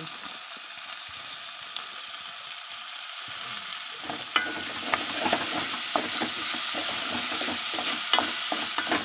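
Chopped tomatoes and shallots frying in oil in a metal pot, sizzling. About four seconds in, a wooden spatula starts stirring them, and the sizzle grows louder, with repeated clicks and knocks of the spatula against the pot.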